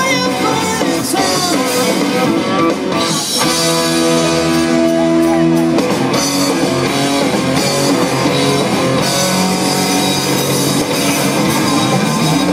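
Rock band playing live: electric guitars, drum kit and a singing voice, with a chord held for a couple of seconds about three seconds in.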